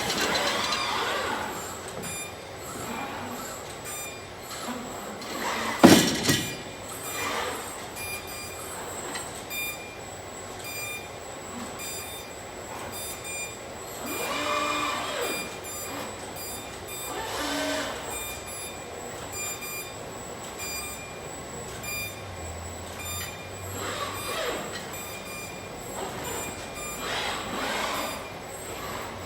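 Machinery of an automated car-parts welding line running, with short high electronic beeps repeating at an even pace throughout. A single loud bang about six seconds in, and several rising-and-falling whines from moving equipment.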